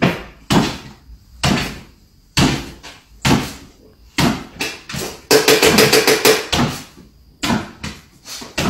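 A small dog jumping up and down on a hardwood floor, its paws thumping each time it lands, about once a second. Past the middle comes a quick run of clicks.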